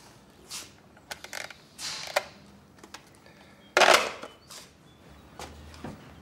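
Soft rustles and small clicks, then a sharp plastic clack about four seconds in as a wall-mounted door-intercom handset is hung back on its cradle.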